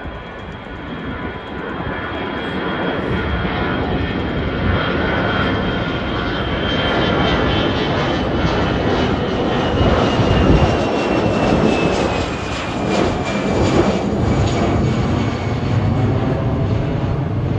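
Twin-engine jet airliner climbing out overhead just after takeoff: a steady engine roar that builds slowly, with a high whine that falls in pitch as the plane passes over.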